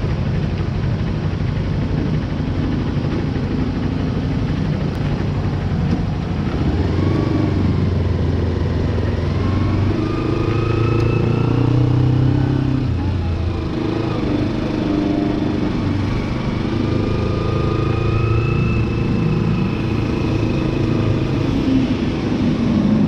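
Motorcycle engine running, its pitch rising and falling several times as it revs up and eases off.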